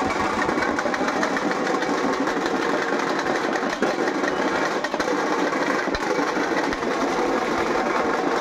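Festival drums played in a fast, continuous, unbroken beat.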